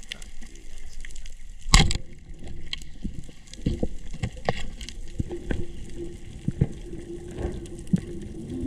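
Band-powered speargun fired underwater, a single sharp crack about two seconds in. Scattered knocks and clicks follow, with a steady low hum from about halfway through.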